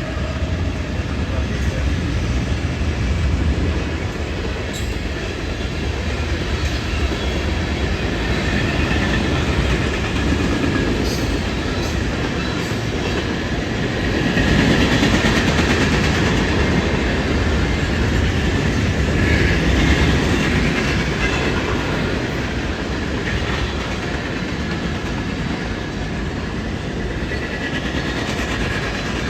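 Train passing, its wheels running on the rails in a continuous rumble that swells louder twice around the middle.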